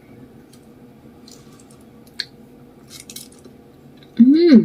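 Faint mouth and chopstick clicks of someone quietly eating noodles, then, near the end, a short loud vocal sound whose pitch rises and falls.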